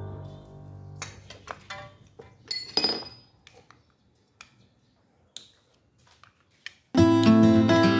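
Scattered sharp metallic clinks and taps of small metal parts and tools being handled on a workbench, with quiet gaps between them. Background music fades out at the start, and strummed acoustic guitar music comes in suddenly near the end.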